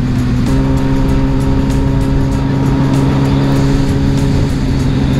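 Motorcycle engine running at a steady cruising speed, holding an even pitch, with rushing wind noise underneath.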